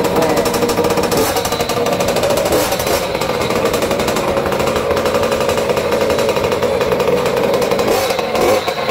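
The 50cc two-stroke engine of a mini trail bike running, a rapid, even buzz. Its pitch bends briefly near the end.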